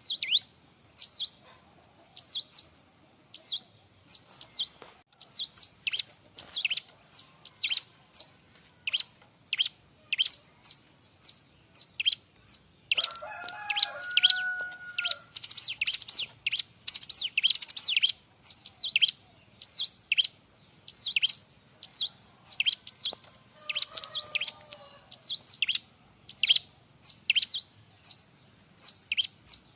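Ciblek (bar-winged prinia) singing noisily: sharp, high, downward-sweeping notes repeated about twice a second, breaking into a dense, rapid flurry about halfway through. A lower-pitched call joins briefly twice.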